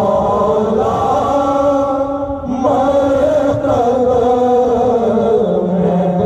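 Men's voices chanting a prayer of supplication together through a microphone, in long drawn-out notes, with a short dip about two and a half seconds in.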